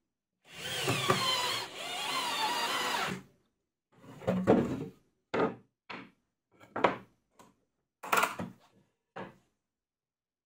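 Cordless drill-driver running for about three seconds in two pushes, its pitch wavering under load as it drives screws into plywood. Then a string of short wooden knocks and clatters as boards are handled and set down on the workbench.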